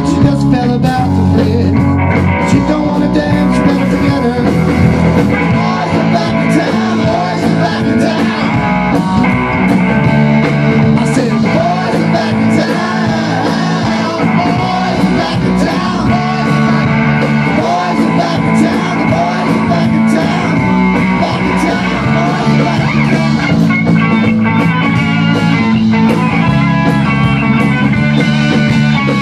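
Rock band playing live: electric bass, electric guitar and drum kit, with a man singing part of the time.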